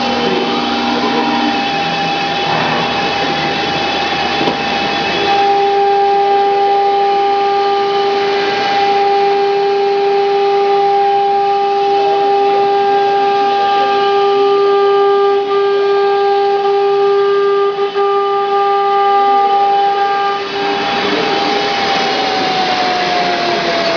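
Automatic-tool-change CNC router's spindle whining at a steady high pitch while cutting MDF, with a rushing noise of the cut underneath. Near the end the whine drops in pitch.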